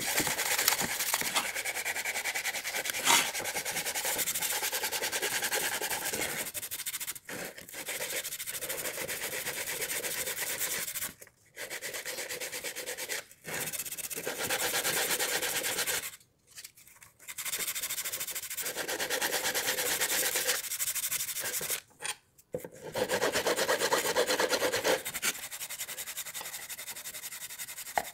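Sandpaper rubbed by hand along the edges of an old weathered wooden frame: quick back-and-forth scraping strokes, broken by a few short pauses.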